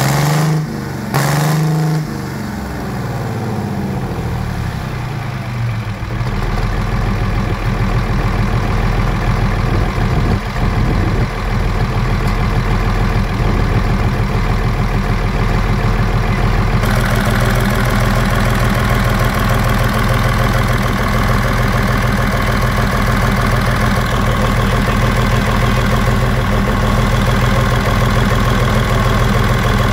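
Transplanted Cummins V6 diesel in an International Harvester tractor running just after a crash (push) start. It revs briefly twice near the start, sinks in pitch over a few seconds, then settles into a steady idle.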